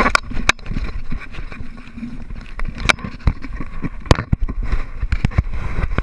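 Knocks, taps and scrapes of a handheld action camera being jostled and moved about, over a steady low rumble.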